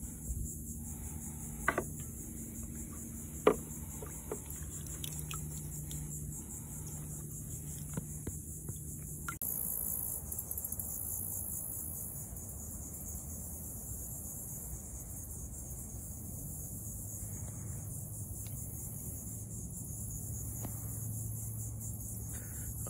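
Insects calling in a steady high-pitched chorus, with a couple of sharp knocks in the first few seconds.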